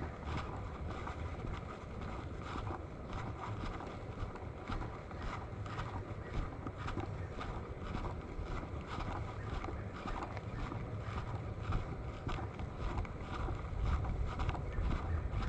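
Creek water running and splashing over rocks, with wind rumbling on the microphone.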